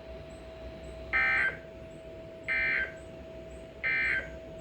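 Three short Emergency Alert System data bursts, the SAME end-of-message code sent over NOAA Weather Radio, each under half a second and evenly spaced about a second and a half apart. They signal the end of the alert test broadcast. Underneath is receiver hiss with a faint steady tone.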